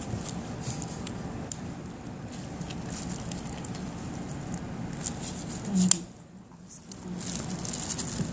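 Low background room noise with scattered light clicks and handling sounds, and a sharper knock about six seconds in, after which it briefly goes quieter.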